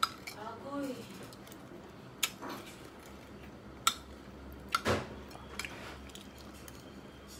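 A person eating at a table: a short hummed 'mm' with a wavering pitch in the first second, then a few sharp clicks of a metal spoon against a ceramic plate and bowl, spaced a second or two apart.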